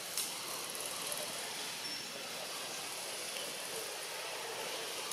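Steady outdoor background hiss with no distinct source, and a small click just after the start.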